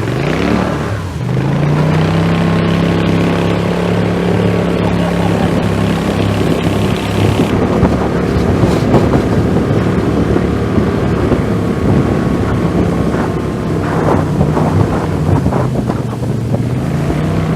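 Jon boat's motor running at speed, with wind on the microphone and water noise. The engine revs up over the first second, eases off briefly around two-thirds of the way through, then picks up again near the end.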